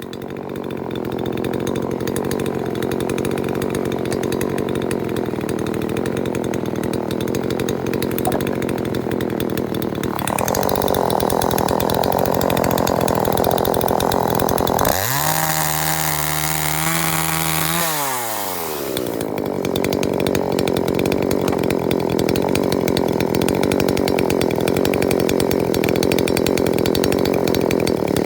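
TCS42X-16SN 39.6 cc two-stroke gasoline chainsaw running: steady for about ten seconds, then revved up, dropping back to idle about fifteen seconds in, and revved up again just before twenty seconds and held at high revs.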